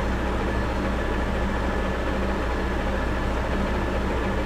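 South Bend 14-1/2 metal lathe running with a steady, even motor and gear hum.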